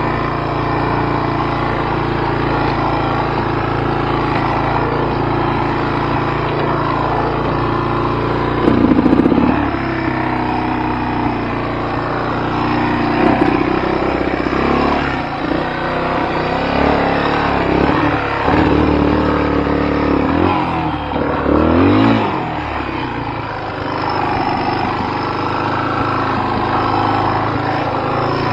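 Trail motorcycle engine running steadily at low revs, then blipped up and down in a series of short revs from about nine seconds in as it picks its way over rock ledges, settling back to a steady run near the end.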